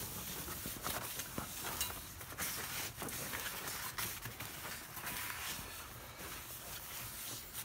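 Irregular rubbing, scuffing and light knocks of hands and a rag working over a new brake rotor, wiping off its anti-rust shipping oil.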